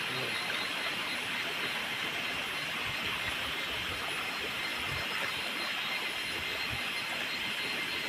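Stream water rushing steadily over rocks, an even wash of water noise.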